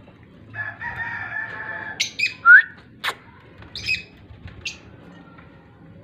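Cockatiels calling: a drawn-out warbling call lasting about a second and a half, then a run of sharp, shrill squawks, the loudest about two and a half seconds in, and two shorter squawks later. A single sharp click about three seconds in.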